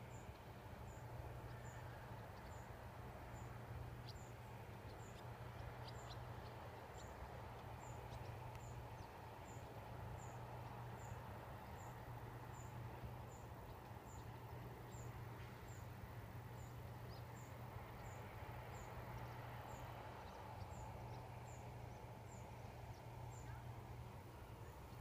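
Faint, steady open-air ambience: a constant low hum under a soft rush of wind, with a small, high chirp repeating very regularly every half second or so.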